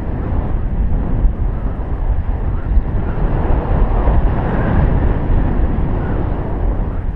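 Wind buffeting the microphone in flight under a tandem paraglider: a loud, steady rush of noise, heaviest in the low end.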